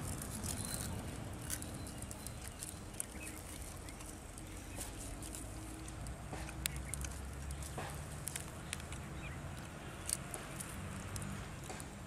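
Outdoor ambience with a low steady rumble and many scattered small clicks and ticks.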